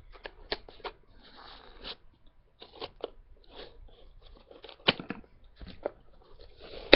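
Cardboard subscription box and its packaging being handled and worked open: irregular crackles, clicks and scrapes, with one sharper snap about five seconds in.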